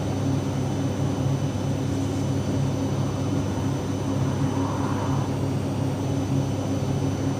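Steady low machine hum, an unbroken drone from a running motor or fan.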